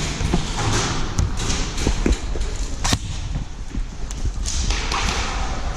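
Footsteps and the rustle of gear of an airsoft player on the move, with a few sharp clicks scattered through.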